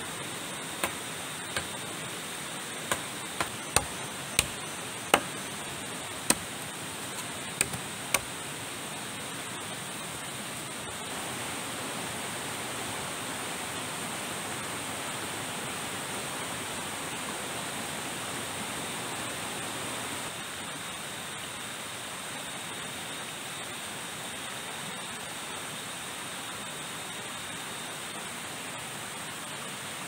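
Steady rushing of river water, with about ten sharp, irregular knocks in the first eight seconds and a thin, steady high-pitched tone above the water.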